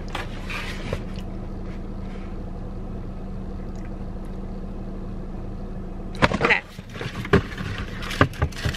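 Steady low hum inside a car's cabin. About six seconds in, a run of short clicks and rustles starts as a sneaker box and its packaging are handled.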